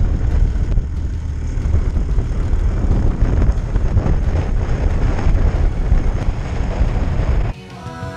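Strong wind buffeting the microphone, with snowmobile engines running. About seven and a half seconds in, it cuts abruptly to rock music.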